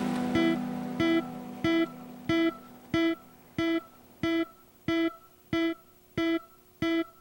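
Background music: a single plucked note repeated about every two-thirds of a second, over a held chord that fades away during the first few seconds.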